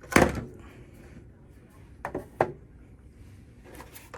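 Magazine being changed on a B&T SPR300 Pro rifle: a sharp loud clack just after the start, then two lighter clicks about two seconds in as the 10-round magazine goes into the magazine well.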